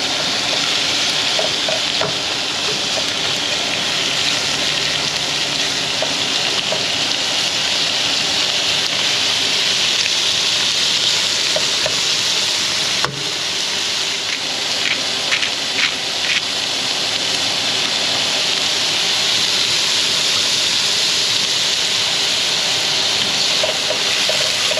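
Shrimp sizzling in oil in a nonstick frying pan, a steady frying hiss, with a few short clicks partway through.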